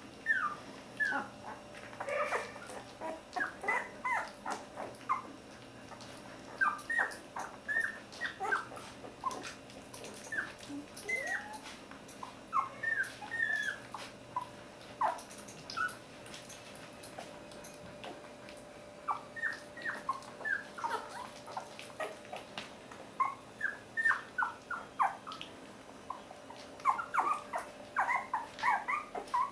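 One-week-old Border Collie puppies squeaking and whimpering: many short, high squeaks, most falling in pitch, coming in bunches with a few brief lulls.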